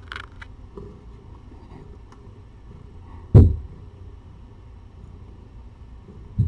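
A heavy dull thump about three seconds in and a smaller one near the end, over a steady low hum, with a few faint clicks at the start.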